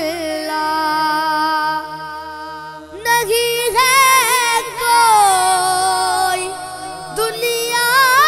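A boy singing a naat, an Urdu devotional song to the Prophet, without words in long melismatic runs. A held note through the first three seconds gives way to winding, ornamented lines, over a low steady drone.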